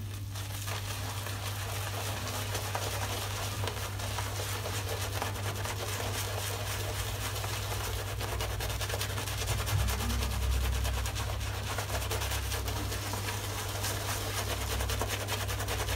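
Boar-bristle shaving brush scrubbing lather over the face, a steady, rapid scratchy crackle. The knot is new and still being broken in, so it is stiff and scritchy.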